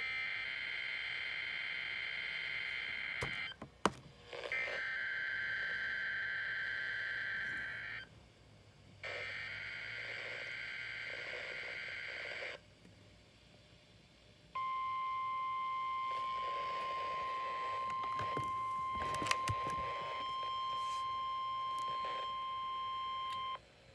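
NOAA Weather Radio weekly test signals received over the air: three bursts of SAME digital header data, each a warbling two-pitch screech of about three and a half seconds, with short gaps between them. About two seconds after the last burst comes the steady single-pitch 1050 Hz warning alarm tone, held for about nine seconds.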